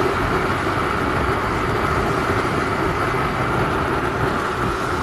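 Motorcycle cruising at steady highway speed: engine drone mixed with wind rushing and buffeting over the rider's microphone, even throughout.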